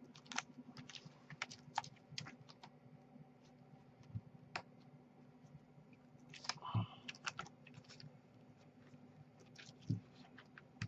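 Faint, scattered clicks and light scrapes of plastic prying picks being worked under the cracked glass digitizer at the edge of an iPad 2, separating it from the frame. A slightly louder cluster of clicks comes about two-thirds of the way through, over a faint steady low hum.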